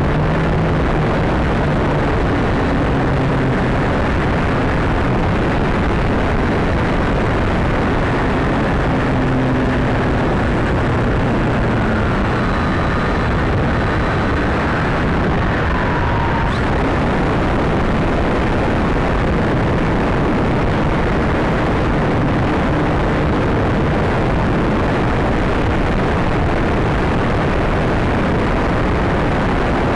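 Scratch-built radio-control plane in flight, heard from a small camera mounted on its side: wind rushing over the microphone with the motor and propeller droning underneath, a loud, steady, rough roar whose low motor tone shifts slightly now and then.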